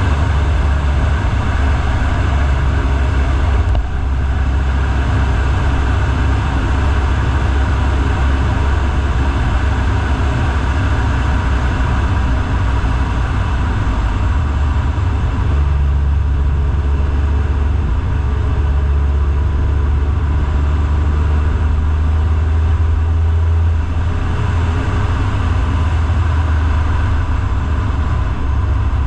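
A vehicle driving, making a steady low rumble of engine and road noise. A deeper steady hum comes in a little past halfway and eases off about three quarters of the way through.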